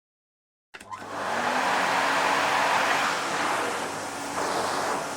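Vacuum cleaner switched on with a click about a second in, its motor spinning up to a steady hum under the rushing sound of suction.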